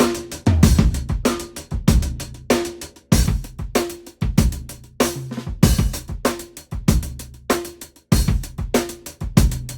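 Sampled drum kit (Spitfire LABS Drums) playing a steady groove: kick, snare, hi-hat and cymbals, about two hits a second.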